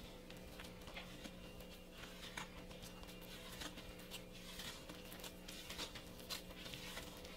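Faint, irregular soft taps and short swishes of food being handled and prepared, over a steady low hum.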